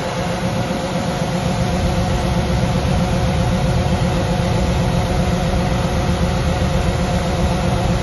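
Steady running of heavy farm machinery: a Fendt 1050 tractor powering a grain cart whose auger is unloading corn into a semi trailer, with a John Deere combine's engine running alongside, an even engine hum throughout.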